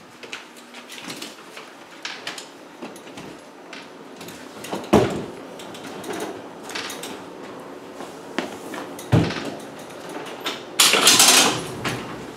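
Loaded Magliner aluminium appliance hand truck being worked up a staircase: scattered knocks and clunks as it bumps up the steps, heavy thuds about five and nine seconds in, and a loud scraping rattle near the end.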